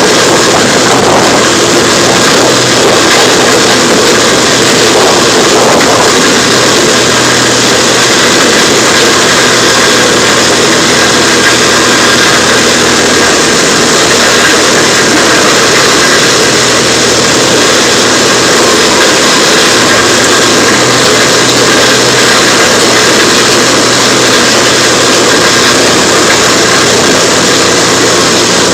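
Heavy machinery engine running steadily, a loud unbroken drone with no let-up.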